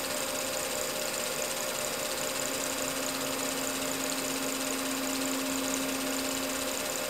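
Small benchtop CNC mill running, its spindle and end mill cutting into a Corian slab with a steady hum and hiss. The axes feed in constant-velocity mode, so the cut runs smoothly instead of stopping and starting. The motor whine fades out for a couple of seconds near the start and then comes back.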